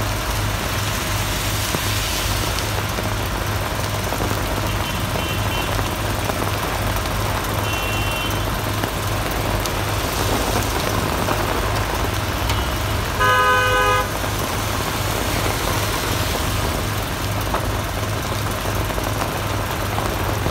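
Heavy rain hissing on a wet city street with traffic, under a steady low engine hum at idle. A car horn sounds once for about a second roughly two-thirds of the way through, and two fainter short horn toots come earlier.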